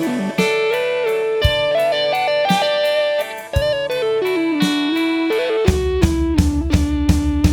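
Instrumental break in a slow Christmas song: an electric lead guitar plays the melody, sliding and bending between notes, over drum hits. A bass and a steadier beat come in near the end.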